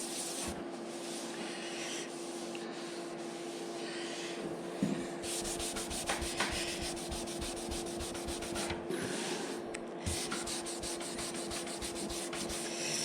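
Abrasive paper rubbed by hand over a painted scooter side panel in many short strokes, flatting down shiny spots in the clear coat.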